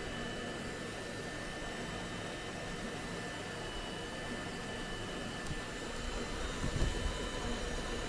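Small 3D-printed fan driven by an RC motor, running steadily: a continuous whirr of moving air with a thin, steady high whine. A brief low rumble comes in near the end.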